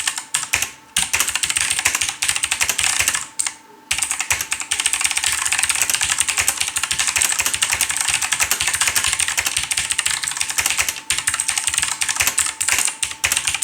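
Fast typing on a mechanical keyboard with Logitech GX Blue clicky switches: a dense run of sharp, loud clicks, pausing briefly about three seconds in.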